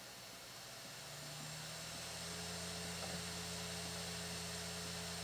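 Apple MacBook Air SuperDrive, an external USB slot-loading optical drive, spinning up a disc as it loads it: a quiet, steady whirring hum that grows louder over the first couple of seconds and then holds, with a higher tone joining about two seconds in.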